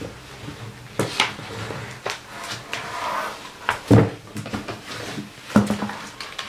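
A hardcover picture book being opened and handled, with several sharp knocks from the cover and pages and some paper rustling.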